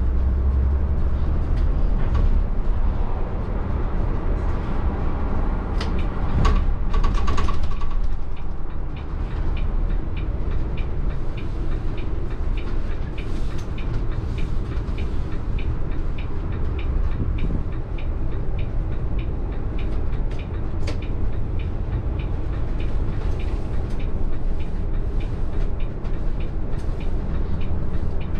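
Scania-powered Caetano Levante coach on the move, heard from the cab: a steady low engine and road rumble, with a louder stretch about seven seconds in. Through the second half, a run of light, evenly spaced ticks sits over the rumble.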